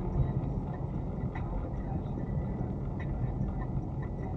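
Car driving along, a steady low rumble of engine and road noise with a few faint clicks.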